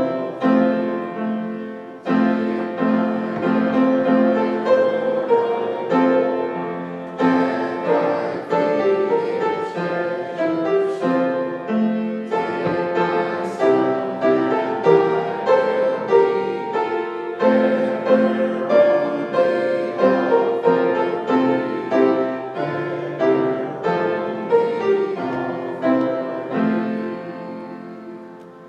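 Piano playing a hymn, a steady stream of chords and melody notes, dying away near the end.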